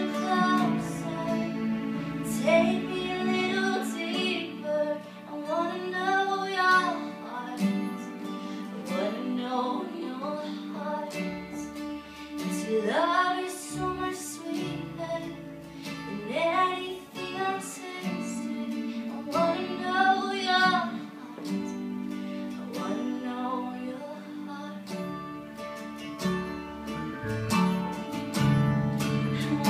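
A woman singing a slow worship song while playing an acoustic guitar, her voice rising and falling in long sung phrases over sustained chords.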